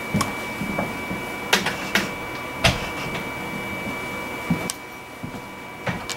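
Light sharp clicks and taps from a glass test tube and pipette being handled, about five of them, over a steady machine hum with a thin high whine.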